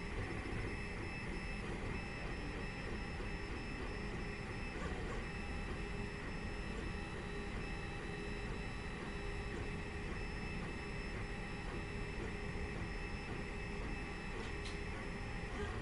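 Open-frame 3D printer with a geared extruder running a print: the stepper motors whine in steady high tones, one of which cuts out and comes back a few times as the moves change, over a steady fan whir.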